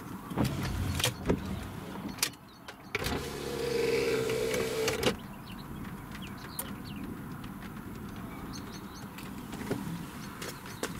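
A car's electric window motor runs with a steady whine for about two seconds and stops with a clunk, after a few knocks and some rumbling in the cabin. Birds chirp faintly in the quieter second half.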